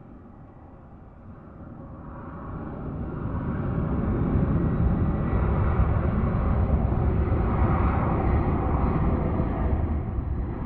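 Jet airliner taking off: engine noise builds over a few seconds into a loud, deep roar that holds steady and begins to ease near the end.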